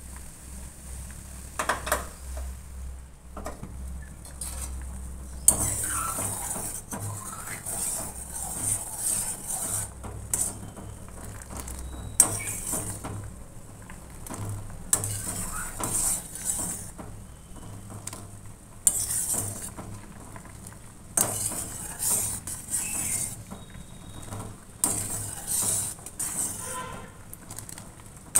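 Metal spoon stirring and scraping against a steel pan of milk heating on a gas stove, in repeated bouts a second or two long. Partway through, more milk is poured into the pan from a steel cup.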